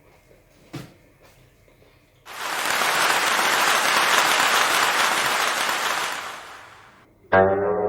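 Applause that starts suddenly about two seconds in, holds for about four seconds and then fades away. Near the end, plucked guitar music begins.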